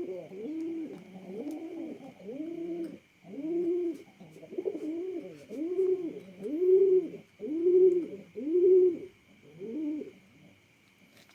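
Domestic pigeon cooing: a run of about ten arched coos, roughly one a second, getting louder towards the end and stopping about ten seconds in.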